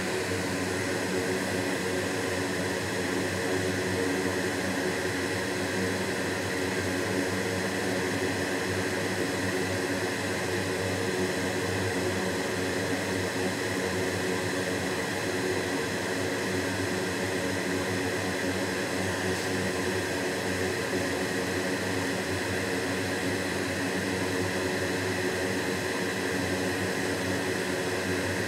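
A small electric blower or fan running steadily: an even rushing hiss with several steady hum tones underneath, typical of a hot air rework station or fume extractor on a soldering bench.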